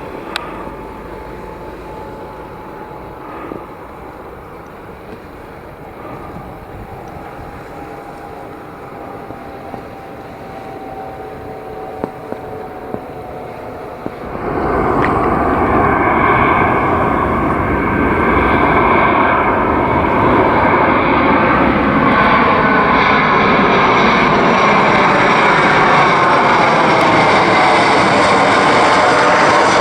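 Airliner engines on approach to land. First a distant engine whine slowly falling in pitch, then about halfway through a sudden jump to loud, close engine noise with tones sweeping up and down as an aircraft passes near.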